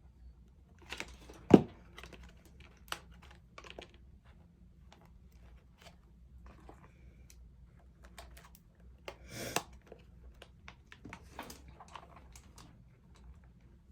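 Scattered light taps, clicks and crinkles of a cut-paper treat container being handled, folded and glued together on a table, with one sharp knock about a second and a half in and a longer rustle near the ten-second mark.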